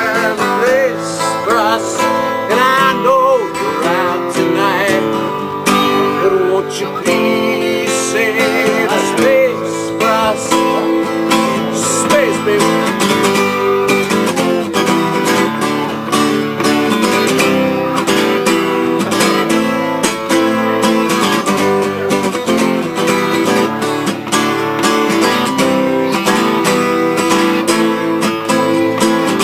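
Instrumental country-style music on strummed acoustic guitar. A wavering, bending lead melody plays over the chords for roughly the first ten seconds, then the strumming carries on alone.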